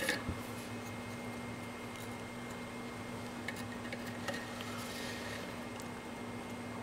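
Steady low electrical hum with a faint high whine, and a few faint light clicks and taps scattered through it.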